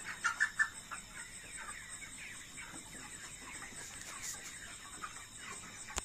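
A large flock of 33-day-old broiler chickens making a dense chorus of short peeps and clucks, with a few louder calls in the first second.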